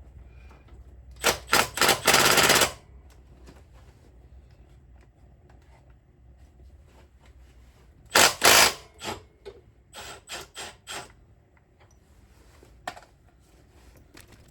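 Power impact tool hammering on a bolt in short bursts, a few quick blips then a longer run of about a second. It goes again twice more, with short pulls near the end, over a low steady hum.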